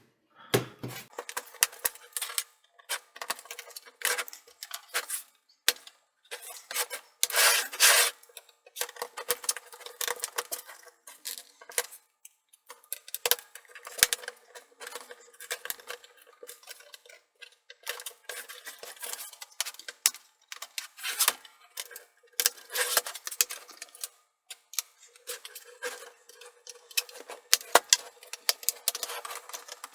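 A plastic guitar pick scraping along the seam of a plastic laptop case to pry the bottom panel loose, in irregular scrapes and sharp clicks.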